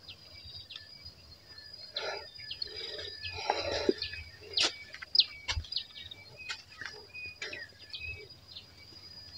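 Birds chirping in short hooked calls over a steady high insect drone, with a few brief rustles a couple of seconds in.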